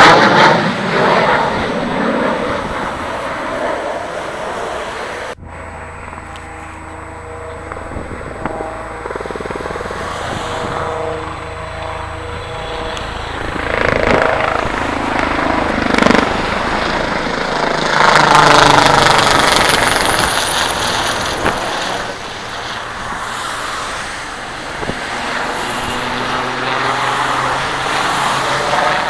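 A military jet's engine noise loud at first and fading over a few seconds; then, after an abrupt cut, a military helicopter flying around with a steady turbine whine over the rotor, swelling louder several times as it passes.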